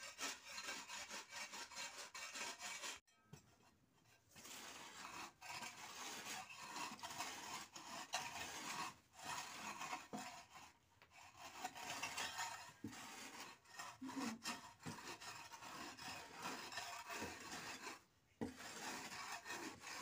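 Repeated rasping strokes of a stone and a long-handled scraper rubbing over an earthen floor, with short breaks about three seconds in and near the end.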